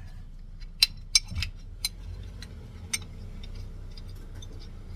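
Metal pieces and bolts of a two-piece brake caliper bracket clinking as the bracket is taken apart by hand: four sharp clinks in the first three seconds and a few lighter ticks, over a steady low hum.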